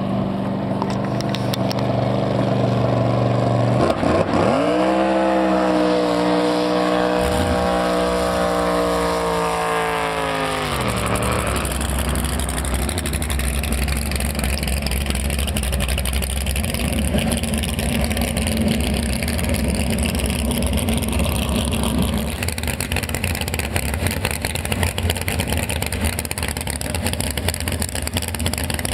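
Drag boat's supercharged V8 engine on a pass: it runs steadily, then about four seconds in jumps up in pitch at full throttle. It holds high for about six seconds and drops away around eleven seconds as the throttle comes off. For the rest it runs slowly with a steady low rumble.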